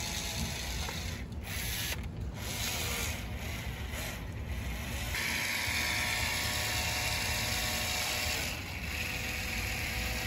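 Urethane caulking gun's drive mechanism running steadily as it pushes out a bead of urethane glue. About five seconds in, the sound gets louder and brighter.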